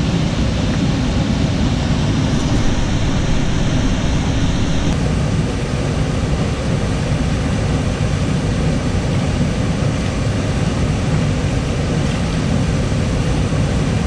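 Steady rushing roar of a waterfall pouring into a rock pool, a deep, even rush of water with no break; its hiss thins a little about five seconds in.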